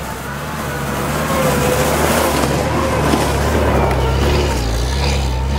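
UAZ Patriot SUV's engine running under load as it ploughs through deep snow and drives past close by, tyres churning snow; the sound swells as it approaches, is loudest in the middle and eases off near the end.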